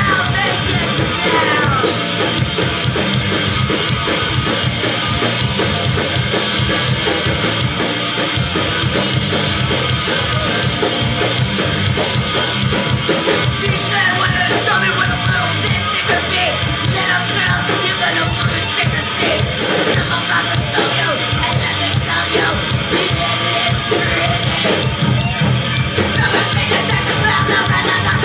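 Punk band playing live and loud: drum kit, vocals and band together in a dense, unbroken wall of sound.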